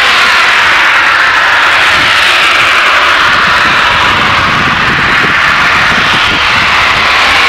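Natural gas blowdown at a compressor station: gas venting under pressure from a vent stack, making a loud, steady jet-like hiss.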